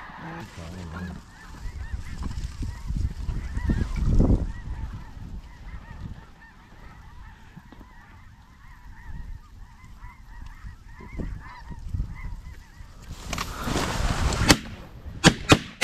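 A flock of geese honking over rumbling wind on the microphone, with a few sharp cracks near the end.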